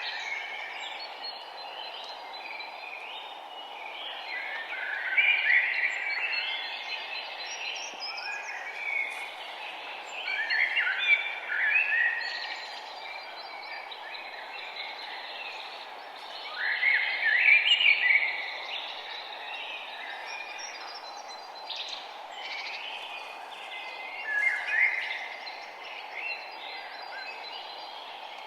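Songbirds singing outdoors, with a loud rapid song phrase every five to seven seconds and softer chirps between, over a steady background hiss.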